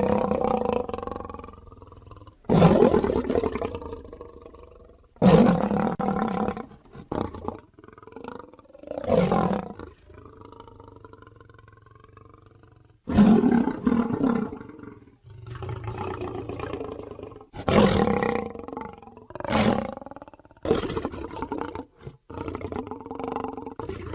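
Griffon creature sound effects made of lion-like roars and growls: about ten separate calls in a row, each starting abruptly and trailing off.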